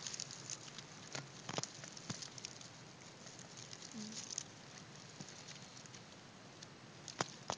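Birch sap dripping from a metal spout into a plastic bottle: a faint, quick, irregular patter of drops that thins out about halfway through, with two sharper clicks near the end.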